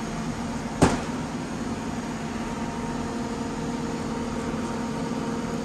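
A machine hums steadily, with one sharp click about a second in.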